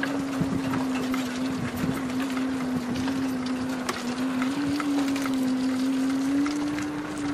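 A tow vehicle's engine running with a steady drone that drifts slightly up in pitch as it pulls a boat trailer across sand. Scattered light clicks and rattles sit over it.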